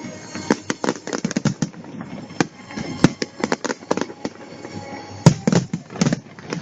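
Aerial fireworks exploding in quick, irregular succession, several sharp bangs a second with a steady crackling haze between them; the loudest bang comes about five seconds in.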